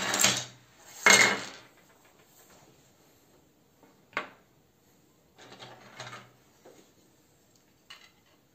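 3D-printed plastic parts sliding off a tipped folder and clattering onto a tabletop, loudest just after a second in. Then quieter handling of the plastic pieces, with a sharp click about four seconds in, a brief rattle around six seconds and another small click near the end.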